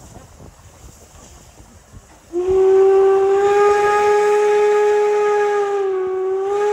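Steam whistle of the DR class 35 steam locomotive 35 1097-1, giving one long, steady blast of about four seconds that starts about two and a half seconds in and dips slightly in pitch just before it stops, with steam hissing under it as the locomotive readies to depart.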